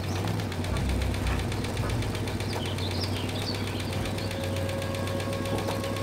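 Small petrol lawnmower engine running steadily, with a fast, even chugging rhythm.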